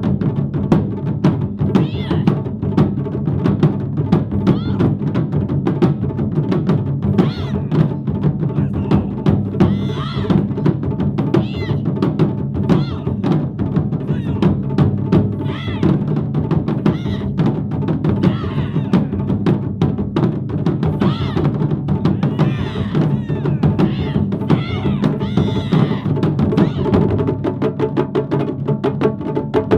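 Taiko drum ensemble playing a fast, dense run of strikes.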